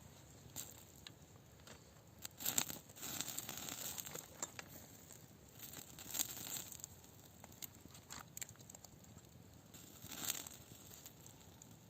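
Intermittent rustling and crinkling of something being handled, with louder bursts of tearing or crumpling noise about two and a half, six and ten seconds in.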